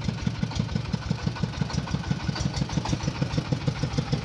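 Small engine of a mobile corn-shelling machine running steadily at idle, with an even beat of about six pulses a second.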